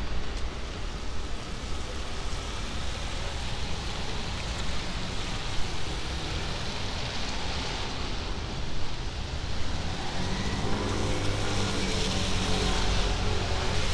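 Cars driving past on a wet street, tyres hissing on the wet road, with a vehicle's engine hum coming up close in the last few seconds.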